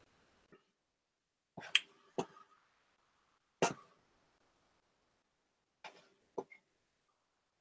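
Scattered sharp clicks and taps at a computer mouse and keyboard, five or six of them at uneven intervals, the loudest about two seconds in and again about three and a half seconds in.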